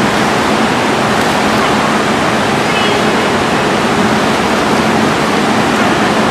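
Steady rushing, splashing water noise of an indoor swimming pool, with faint voices in it.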